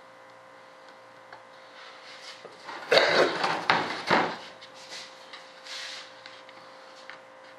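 A stiff sheet of rudder material handled and laid down on the workbench, scraping and rubbing loudly for about a second and a half about three seconds in, then a few lighter scrapes.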